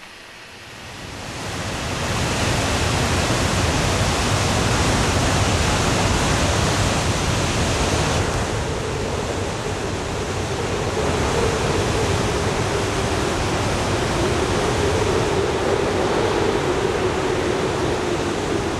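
Steady rush of Victoria Falls, a huge waterfall, fading in over the first couple of seconds and then holding even.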